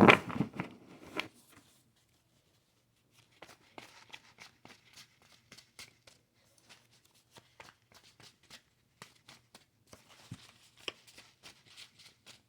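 Faint, irregular light taps and clicks with soft rustling, like small objects being handled, beginning about three seconds in after a spoken word trails off.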